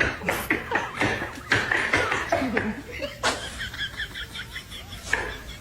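People laughing in short, repeated bursts, with a quick run of giggling about halfway through.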